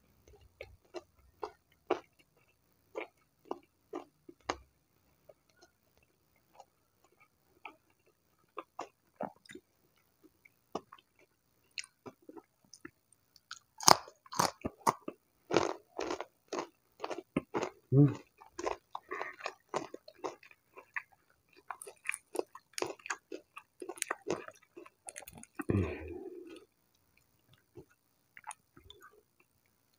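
Close-up chewing of crunchy battered fried tempeh: scattered crisp, wet mouth clicks at first. From about halfway through they turn busier and louder as a fresh mouthful is bitten and chewed, then thin out near the end.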